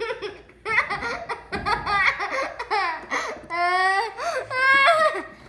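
A young child laughing in a string of high-pitched bursts.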